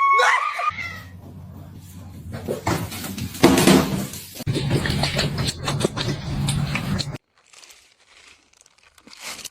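A domestic cat meowing: a short call that rises and falls in pitch at the very start, followed by several seconds of noisier sound with a louder burst about three and a half seconds in, then nearly quiet.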